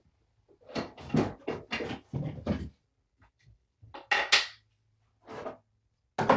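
Hard objects knocking and clattering in a quick run of about half a dozen knocks, followed by a few short scraping, rustling bursts.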